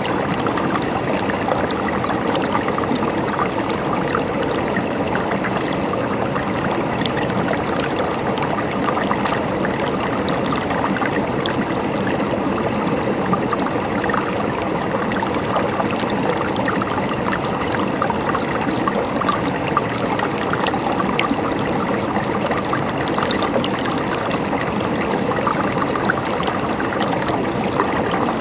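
Water running in a stream, a steady, unbroken flow.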